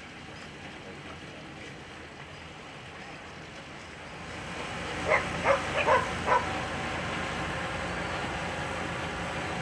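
A dog barks five times in quick succession about five seconds in, over a steady engine drone that grows louder just before the barks.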